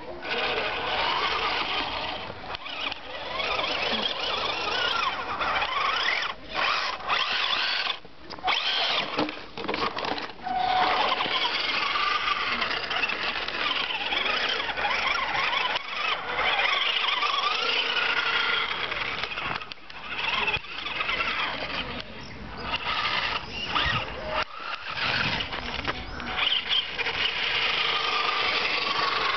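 Radio-controlled scale Hummer truck's electric motor and gears whining as it drives over grass, the pitch rising and falling with the throttle, with several short pauses where it stops.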